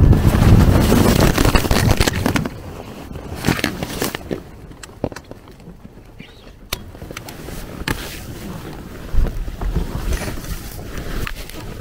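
Wind buffeting the microphone loudly for about the first two and a half seconds, then a quieter hiss with scattered clicks and scrapes of grass blades rubbing against the camera.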